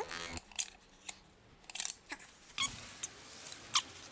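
Scattered small metallic clicks and scrapes of hands handling parts on a bare Porsche Boxster S engine block, with a sharper click near the end.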